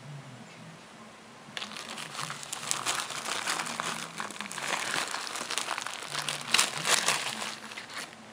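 Packaging crinkling and rustling as hands rummage through the box of items; it starts about a second and a half in and goes on as a dense crackle of many small crinkles, easing off near the end.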